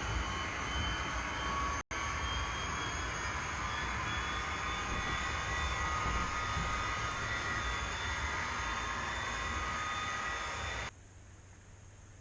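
Recorded diesel train sound effect: a steady engine sound with a high whine, dropping out for a split second about two seconds in and cutting off suddenly near the end, leaving a faint low hum.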